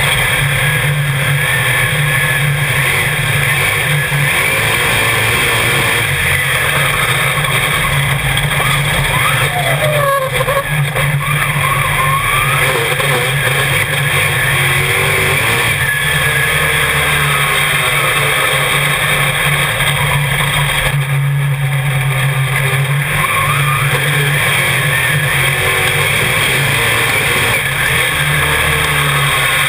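Dirt modified race car's V8 engine running at speed, heard from inside the cockpit, its pitch rising and falling a few times on and off the throttle.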